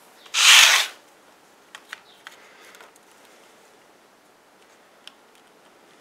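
A brief, loud breathy rush of noise about half a second in, then a few faint, sharp plastic clicks and taps as a McFarlane Spawn action figure is picked up and handled.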